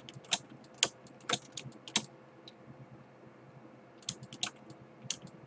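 Irregular clicks and taps of a computer keyboard and mouse being worked: a run of keystrokes over the first two seconds, a pause, then another short run about four seconds in.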